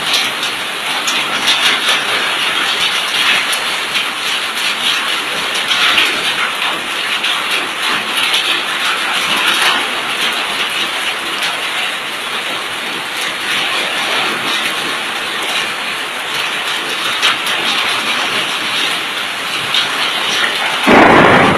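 Heavy rain mixed with hail pelting the ground, a dense steady hiss with scattered small ticks. Near the end a short, louder burst stands out.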